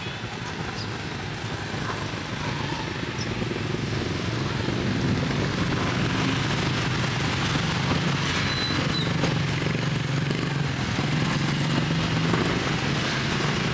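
Street traffic noise with a motorbike engine running close by, getting louder through the middle and easing off near the end.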